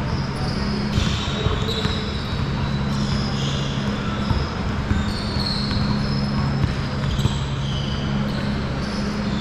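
Basketball game in play on a gym court: a ball bouncing and short high squeaks scattered throughout, over a steady low hum.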